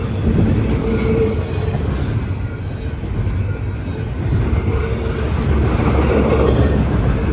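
Intermodal freight train rolling past, a steady heavy rumble of wheels on rail with clatter from the cars. A faint held tone comes and goes over the rumble.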